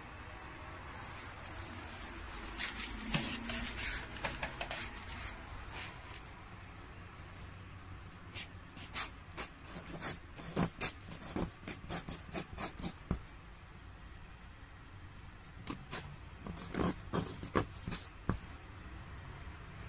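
A swan-feather quill and a thin ink-dipped stick scratching across Wenzhou unbleached paper. A longer rubbing stretch comes first, then two quick runs of short, dry strokes with a brief lull between them.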